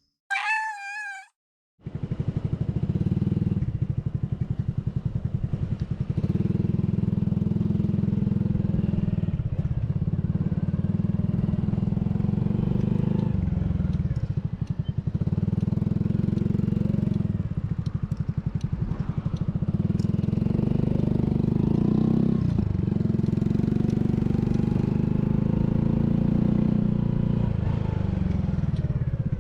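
Honda Cross Cub 110's single-cylinder engine running steadily on the move, its sound dropping briefly a few times. A short warbling tone sounds just before it begins.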